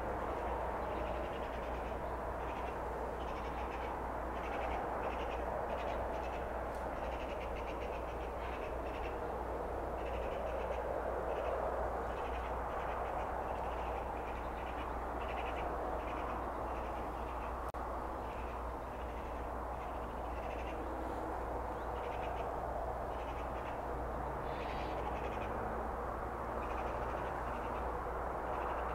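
Steady open-air ambience: a low wind rumble and an even rush, with many short bird calls scattered throughout.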